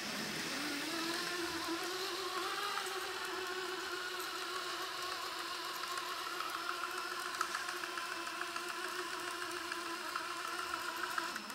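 Electric motor and four-wheel-drive gearbox of a vintage Royal Crusher RC monster truck, whirring as they spin the wheels with the truck held off the ground. It spins up in the first second, then runs steadily, with a light regular ticking from the drivetrain in the later part.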